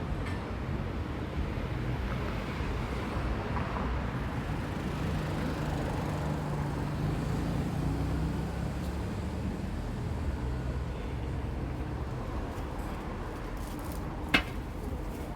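Steady street traffic noise with a vehicle engine's low hum passing through the middle, and one sharp click near the end.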